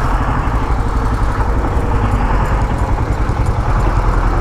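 Motorcycle engine running at low speed, a steady rumble, with a bus passing close alongside on a dirt road.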